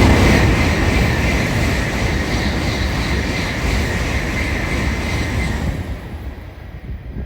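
Shinkansen bullet train passing at speed: a loud rush of wheel, rail and wind noise, loudest at the start, then fading away from about six seconds in.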